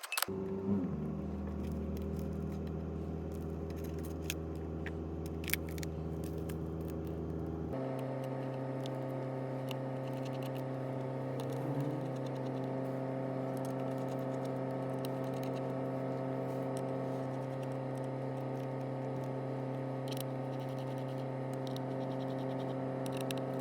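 A machine running with a steady pitched hum. Its pitch changes about eight seconds in, and it cuts off suddenly at the end. A few light clicks sound in the first several seconds.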